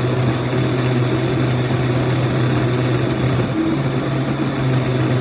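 Countertop blender motor running steadily, blending tomato sauce with chunks of pepper, onion and mushroom; the hum dips briefly about three and a half seconds in and again near the end.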